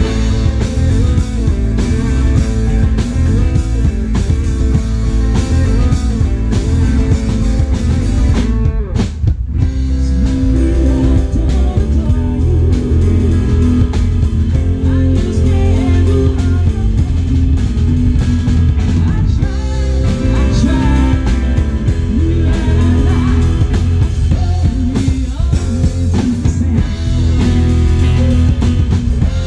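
Rock band playing live through a PA: electric guitars, bass guitar and drum kit, with a lead vocal. The high end thins briefly about nine seconds in, then the full band carries on.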